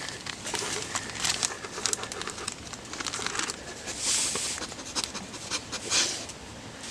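Bacon sizzling and popping in a pan, a quick run of small crackles, with two short, louder hissing bursts about four and six seconds in.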